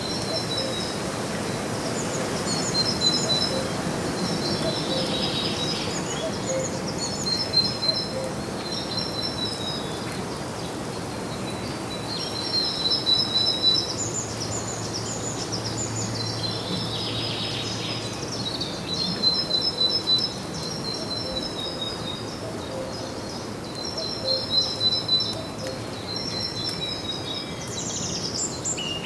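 Songbirds chirping: quick series of short, high notes, phrase after phrase with brief gaps, over a steady background hiss of outdoor ambience.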